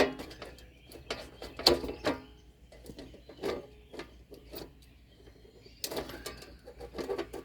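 Scattered clicks and knocks of hands handling hardware, the sharpest click right at the start and further small clusters of clicks through the rest.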